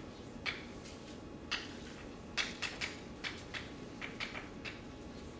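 Chalk writing on a blackboard: a run of short, irregular taps and scratches, about a dozen over a few seconds.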